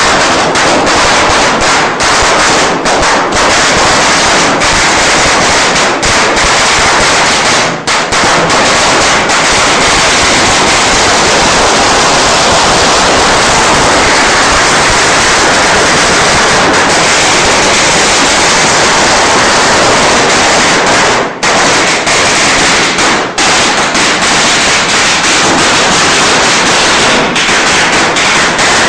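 A long string of Chinese firecrackers going off in a rapid, unbroken rattle of loud bangs, with a few short breaks, one about a quarter of the way in and two more past two-thirds.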